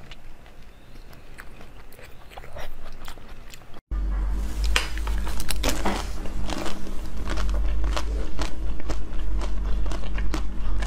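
Close-miked mouth sounds of eating: soft, sparse chewing at first, then after a brief break louder crisp crunching and biting with many sharp cracks several times a second, over a steady low hum.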